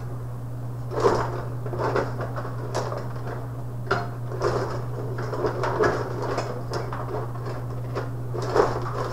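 Tabletop rod hockey game: irregular plastic clacks and knocks as the rods are worked, the players strike the puck and it hits the boards. A steady low hum runs beneath.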